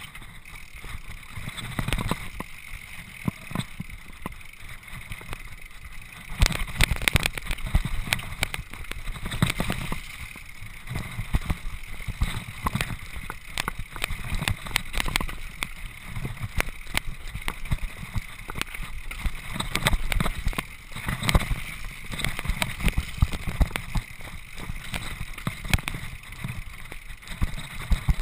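Mountain bike rattling and clattering over a rocky stone trail, heard through a GoPro camera: a constant stream of irregular knocks and jolts, heavier from about six seconds in, over a steady hiss.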